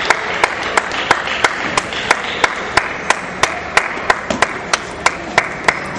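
Table tennis balls clicking off bats and table in an even run of sharp clicks, about three a second, over a steady hiss of hall noise.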